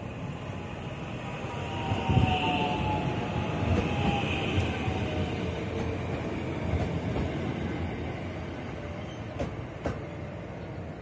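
JR West 521 series electric multiple unit running past the platform and away, with a faint whine that slowly drops in pitch and the rumble and clatter of wheels over the rails, loudest about two to four seconds in and then fading. Two sharp clicks come near the end.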